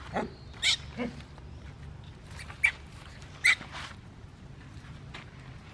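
Macaques giving about five short, sharp calls in quick succession, the loudest a little over half a second in and then about two and a half and three and a half seconds in.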